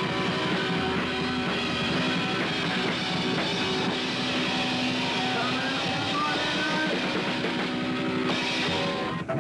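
Punk rock band playing loud, with distorted electric guitars and a drum kit; the music cuts off abruptly at the very end.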